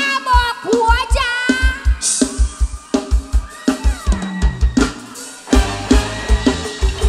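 Mor lam sing band music led by a drum kit playing a fast, steady beat of bass drum and snare, with a wavering melodic lead line over it early on. A cymbal crash comes about two seconds in, and the drums drop out briefly near five seconds before coming back in.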